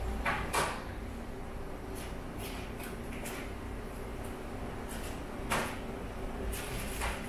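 Airport apron ambience: a steady low hum with faint steady tones, broken by a few short knocks, two close together near the start and a louder one about five and a half seconds in.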